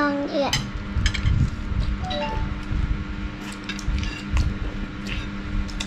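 Spoons clinking and scraping against bowls during a meal: scattered short clinks over a steady low hum. A child's voice is heard briefly at the start.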